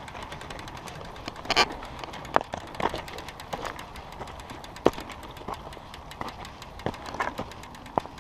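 Mountain bike rolling over a very loose dirt trail: irregular clicks, knocks and scrapes from stones under the tyres and the bike rattling, over a steady rushing noise.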